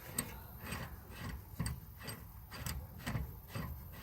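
Irregular metallic clicks and light knocks, about two or three a second, as a new Moog inner tie rod is turned and tightened onto the steering rack.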